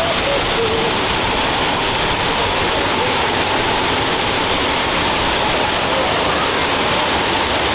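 Steady, loud rush of a waterfall heard from right beside the falling water.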